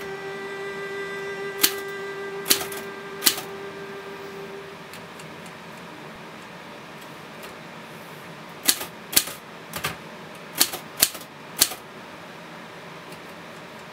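Typewriter keys striking the paper: three sharp clacks in the first few seconds, then six more in a quick run later on, over a steady low hiss. A held musical note fades out during the first few seconds.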